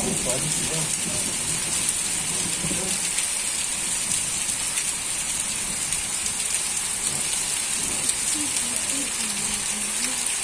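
Steady rain pouring onto a concrete yard, a constant even hiss.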